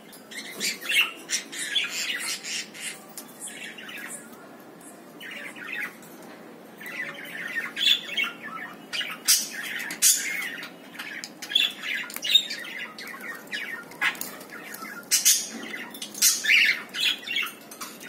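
Cockatiels squawking and chirping in short, repeated calls, with sharp splashes of water from a bird bathing in a shallow plastic tub.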